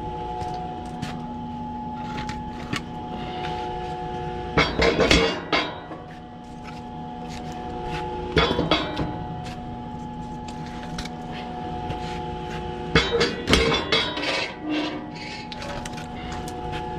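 Gas-station fuel pump humming steadily while fuel is pumped, broken about every four seconds by short bursts of metal clinking and clanking.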